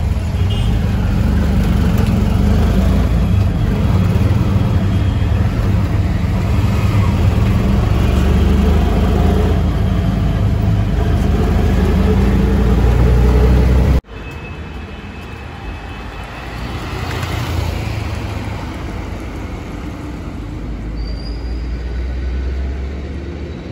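Auto-rickshaw's small engine running with a loud, steady rumble and rattling road noise, heard from inside the open cabin while it drives through traffic. About halfway through it cuts to quieter roadside traffic noise, with a vehicle swelling past.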